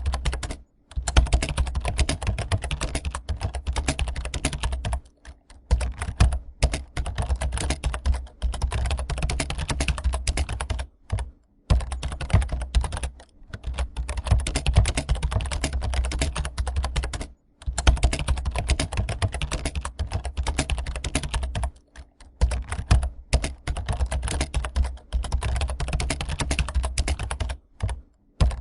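Fast continuous typing on a computer keyboard, a dense run of key clacks broken by brief pauses every few seconds, over a low hum.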